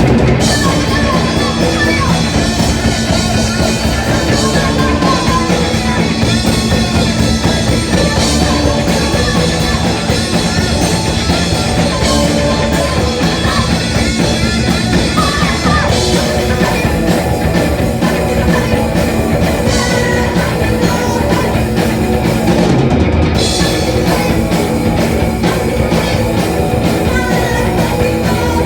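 Punk band playing live: distorted electric guitar, bass and drum kit, loud and dense, with a singer's voice in the mix.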